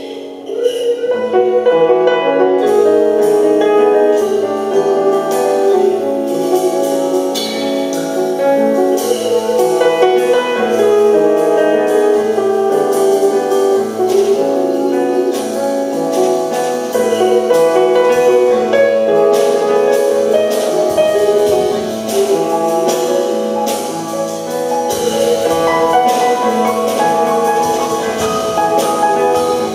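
Live instrumental music: a grand piano plays melodic lines and chords, with percussion strikes joining a couple of seconds in and continuing alongside it.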